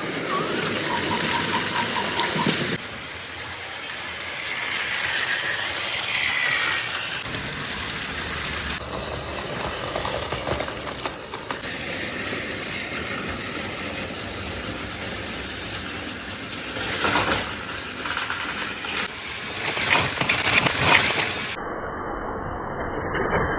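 Battery-powered Plarail toy trains running on plastic track: small motors whirring with a continuous clatter from wheels and track. The sound changes abruptly several times, and a short run of beeps comes about a second in.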